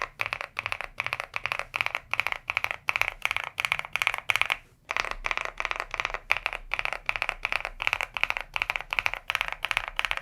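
Rapid key rolls on an Osume Play75 mechanical keyboard: fingers roll quickly across the keys, giving dense runs of overlapping clacks, with a brief pause about five seconds in.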